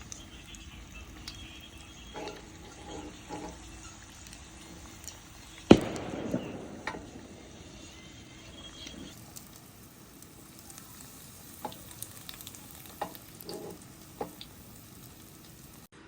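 Nian gao (rice cakes) frying in oil in a pan, sizzling steadily, with scattered light clicks and taps of a utensil. About six seconds in there is a sharp knock, after which the sizzling briefly grows louder.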